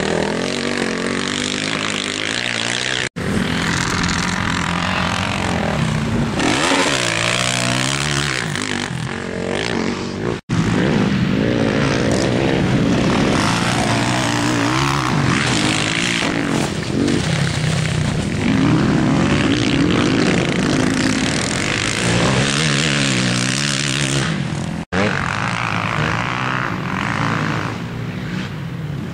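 Motocross dirt bike engines revving up and down as the bikes accelerate, shift and back off around the track, with three short sudden gaps.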